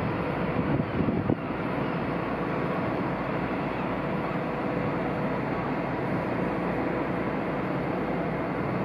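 Steady rumble of a large ship's machinery with a faint constant hum, and wind buffeting the microphone for the first second and a half.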